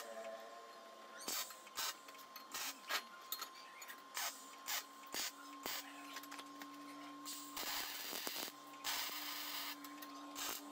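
Workshop handling of small parts: scattered clicks and light taps, with two short spells of scraping about seven and a half and nine seconds in, over a faint steady hum.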